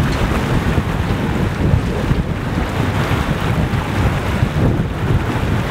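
Heavy wind buffeting the microphone over the rush and churn of a sailing yacht's wake as it sails at speed. A steady, loud noise without a break.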